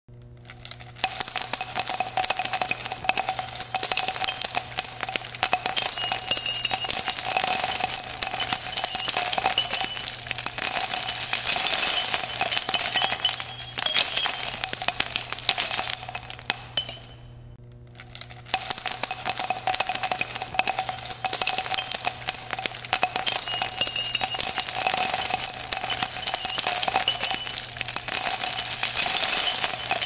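Spent .50-calibre brass cartridge casings dropping and clattering in a dense, continuous metallic jingle with a bright ringing. It starts about a second in and breaks off briefly about halfway through before starting again.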